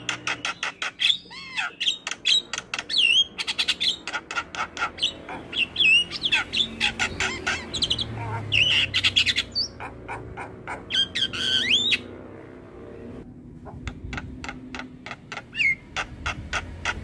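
Javan myna (jalak kebo) singing a varied song: rapid clicking chatter mixed with short rising and falling whistles, with a brief pause about twelve seconds in.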